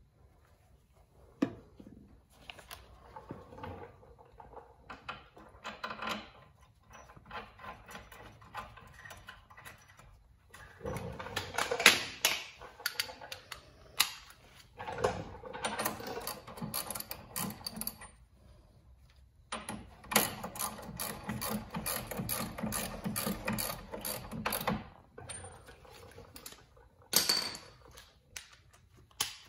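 Hand socket ratchet clicking rapidly in several spells of a few seconds each, with quieter scattered handling clicks beforehand: a caliper bracket bolt coated with red threadlocker is being run back in and snugged down.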